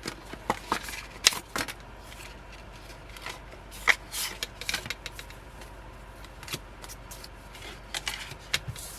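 Paper and card being handled: the envelope-style packaging of a K-pop platform album and its photocards and inserts rustling, with scattered small clicks, taps and scrapes, the sharpest about a second and a half in and about four seconds in.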